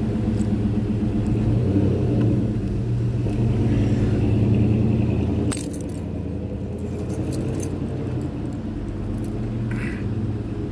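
Steady low hum of a running engine. A sharp click about halfway through is followed by a slightly quieter hum, then a few light metallic jingles and clicks.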